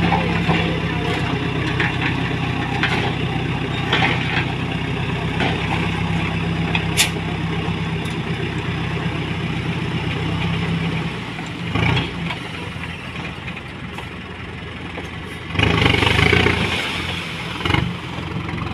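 Tipper truck's diesel engine running steadily as the hydraulic hoist raises the bed; the engine note drops about eleven seconds in. Then come two loud rushes of noise, the load of soil sliding out of the tipped bed, the second and longer near the end.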